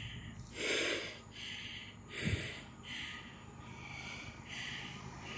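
A person panting hard and out of breath after running, with rapid heavy breaths about one every ¾ second and two louder gasps in the first half. Under the breathing is a steady low rumble from the approaching diesel locomotives.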